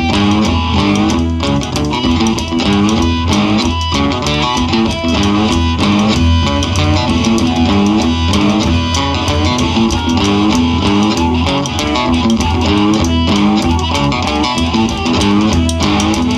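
Live blues band playing homemade cigar-box guitars over a steady drum beat, with amplified harmonica.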